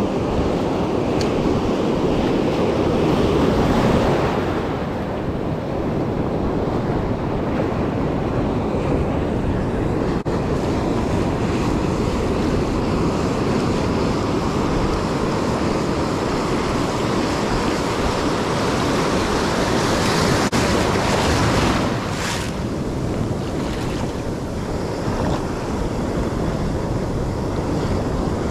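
Ocean surf breaking and washing up the beach, with wind buffeting the microphone. The wash swells a few seconds in and again about two-thirds of the way through.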